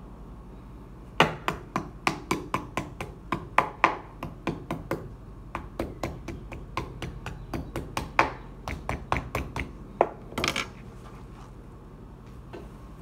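Kitchen knife chopping on a wooden cutting board: a quick, uneven run of sharp knocks, about three or four a second, that stops about ten seconds in.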